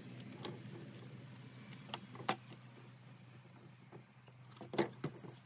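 Faint crinkling and ticking of foil tape being picked and peeled off the cured epoxy and wood, with a few sharper clicks about two seconds in and again near the end, over a low steady hum.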